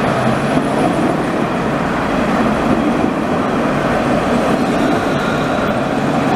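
Alstom Citadis 302 low-floor tram passing close by, with a steady, even running noise from its wheels on the rails.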